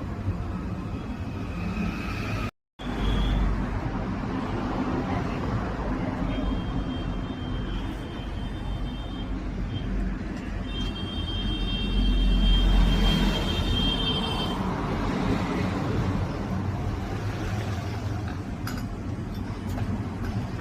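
Steady low rumble of running motor vehicles, with a high steady horn-like tone sounding twice, each time for a few seconds, in the second half. The sound cuts out briefly near the start.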